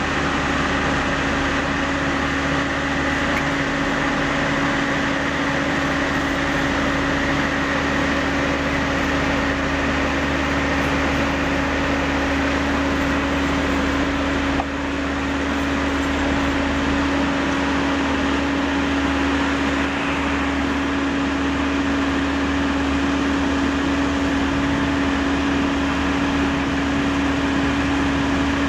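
Tracked asphalt paver (Sumitomo finisher) running at work, its augers spreading hot-mix asphalt: a loud, steady machine drone with one strong held hum.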